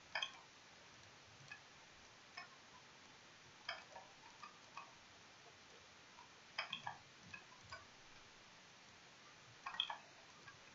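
Faint computer mouse clicks, scattered and often in quick pairs or short runs, with the louder runs about six and a half seconds in and near the end.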